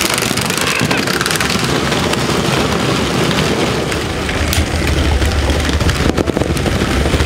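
Several battery-powered Tonka Climb-Overs toy trucks running together on a plastic track, their small motors whirring and their wheels clattering on the plastic. About four seconds in a low rumble joins them as the playset's plastic boulder rolls down off its ramp.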